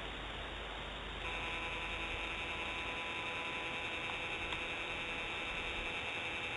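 Steady hiss, joined about a second in by a steady electric whine made of several held tones: the nest camera's pan-tilt motor driving the camera round.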